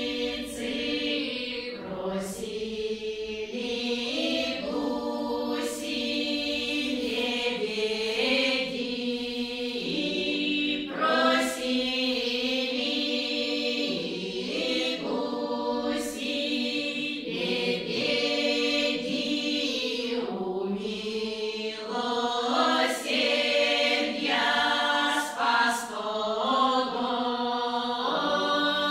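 Women's folk ensemble singing a Russian folk song unaccompanied, several voices together in long held notes broken into phrases.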